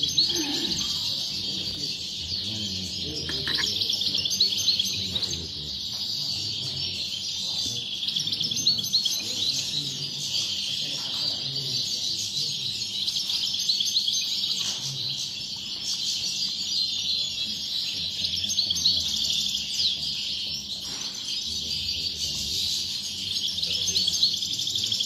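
Several caged European goldfinches singing at once: continuous, overlapping high twittering songs.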